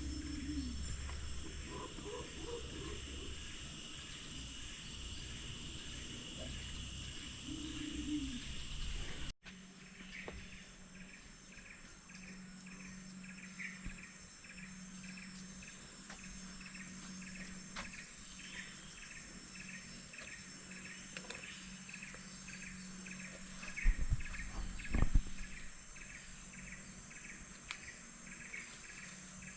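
Tropical insects droning steadily, with a rhythmic chirping about twice a second and a few short low animal calls in the first part. Two loud knocks about three-quarters of the way through.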